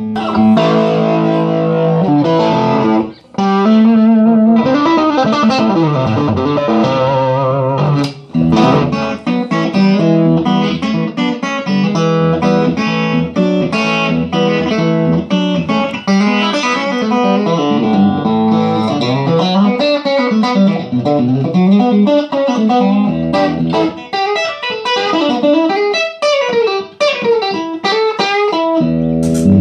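Electric guitar, a Fender Telecaster, played through a 6V6 valve-powered 20-watt 1x12 combo amp with the tone (treble) and gain turned up for a driven, bright tone. It plays lead lines with string bends and vibrato, with a short break about three seconds in.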